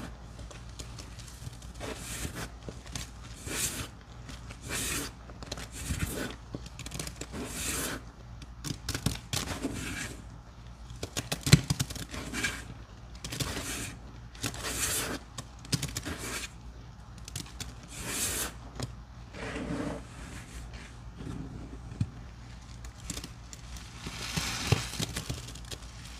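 Sponges soaked in a foamy paste of Pine-Sol, Murphy's Oil Soap, grated soaked soap and baking soda being squeezed again and again, each squeeze a wet, crackling squish lasting about a second, roughly one every second and a half. A sharper knock comes about eleven seconds in.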